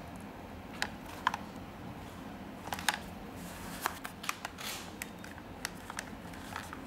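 Replica Beats Studio plastic over-ear headphone being handled and turned over in the hands: a dozen or so scattered light clicks and knocks, with a short rustle about halfway through, over a steady low hum.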